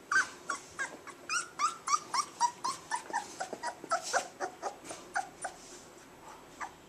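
Four-week-old Labrador Retriever puppies whimpering: a rapid string of short, high squeaky cries, several a second, many falling in pitch, growing fainter near the end.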